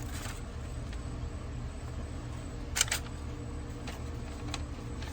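A few light metallic clicks and taps of small parts and hand tools on a refrigerant service valve, the loudest a quick double click about three seconds in, over a steady low hum.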